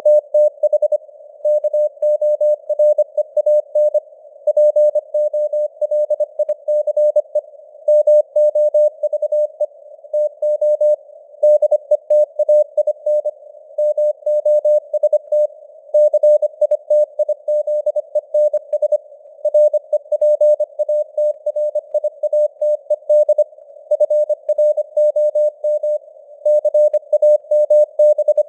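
Morse code (CW) at 25 words per minute: a single steady beep keyed on and off in dots and dashes, with longer gaps between words. A faint hiss of simulated radio noise sits around the tone between the beeps.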